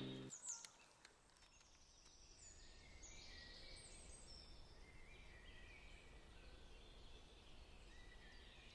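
Faint birds chirping over quiet outdoor ambience, fading in about two seconds in, after the tail of a music cue dies away at the very start.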